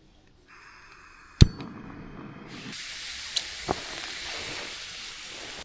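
Portable gas camping stove burner hissing, with one sharp click about a second and a half in; the hiss grows louder and fuller about halfway through.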